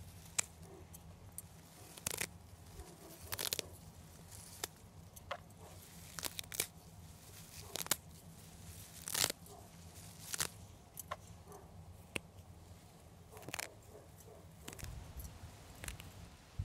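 Fresh coriander stems snapped and torn off by hand, a string of short, sharp snaps with leaf rustle, irregularly about once a second.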